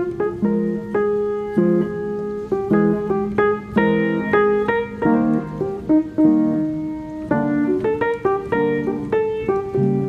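Background piano music: a steady run of single notes and chords.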